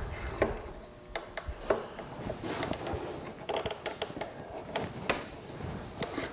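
Light, irregular wooden knocks and clicks from a wooden guide jig being handled and worked down over a turned mahogany table leg.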